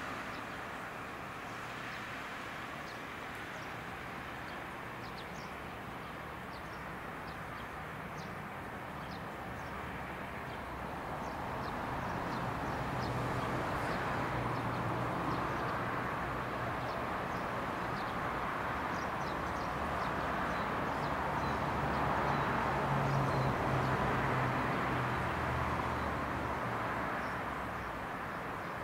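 JR West 113-series electric train pulling away and rolling toward the microphone. A low motor hum and the rumble of wheels on rail swell from about ten seconds in and ease off near the end. Small birds chirp now and then throughout.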